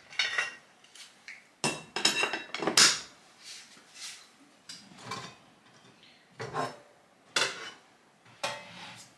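Kitchen clatter: dishes and other objects being knocked, moved and set down in a series of separate clatters and knocks, the loudest cluster about two to three seconds in.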